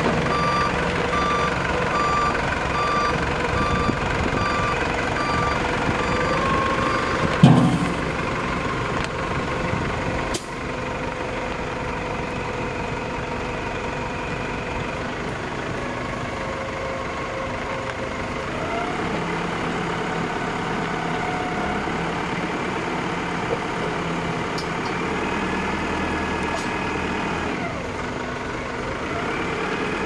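Mini wheel loader's engine running steadily while it works a hydraulically driven concrete-mixer bucket loaded with sand and gravel. A warning beeper sounds in a steady on-off pattern for the first seven seconds or so, with a loud knock about seven and a half seconds in and a sharp click a few seconds later.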